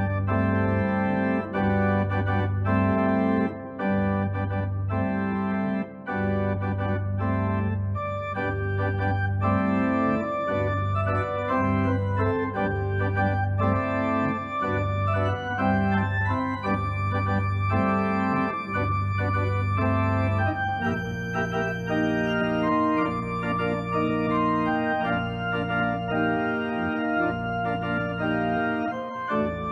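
Instrumental organ music: slow, held chords over sustained bass notes, the bass moving to a new register about two-thirds of the way through.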